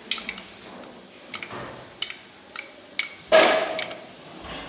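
A metal spoon tapping and clinking against a small glass bowl and the pot while red chilli powder is spooned in: about seven sharp, irregular taps, with one louder, longer clatter a little past three seconds in.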